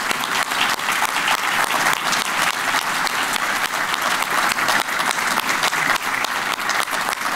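An audience applauding steadily: many people clapping at once, a dense patter of claps.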